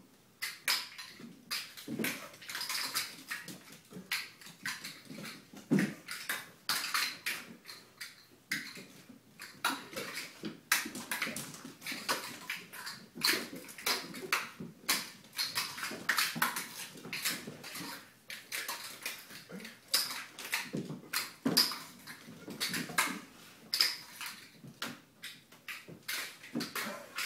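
Cats' paws and claws skittering, tapping and thumping on a bare hardwood floor as they leap up and land again, an irregular run of quick taps and scrabbles.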